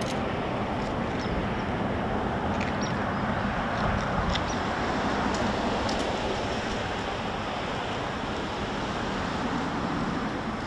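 Steady outdoor background rumble, with faint, scattered distant knocks of an ash log being pounded with a mallet to loosen its growth rings into basket splints.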